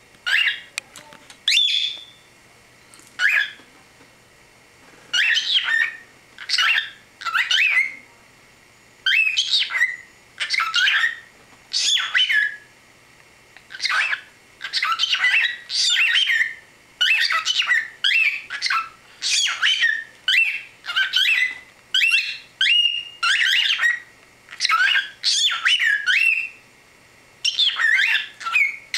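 Pet cockatiel vocalising in a long string of short, high-pitched squawks and chirps, mostly one or two calls a second, with a pause of a few seconds near the start.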